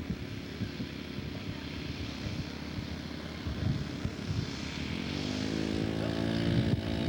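Radio-controlled scale model Monospar's engine note on landing approach, faint at first, then a clear propeller-engine drone coming in about three and a half seconds in and growing louder as the model comes closer, its pitch sagging slightly near the end.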